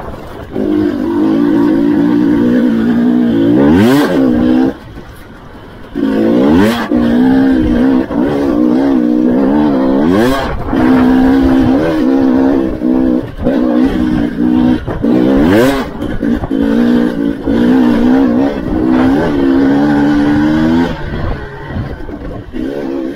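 KTM 300 XC-W TPI two-stroke dirt bike engine under way, the throttle opening and closing, with its pitch rising on each pull several times. It drops to a quieter low note for about a second around five seconds in.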